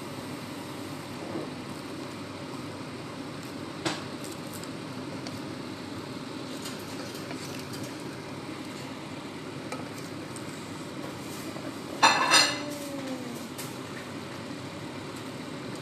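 Vegetables being stir-fried in a pan with a wooden spatula: a steady frying hiss, a sharp knock about four seconds in, and a louder clatter of the pan with a brief ring about twelve seconds in.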